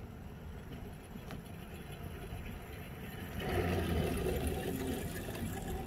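Small engine of a ride-on miniature railway locomotive idling steadily, growing louder a little over halfway through.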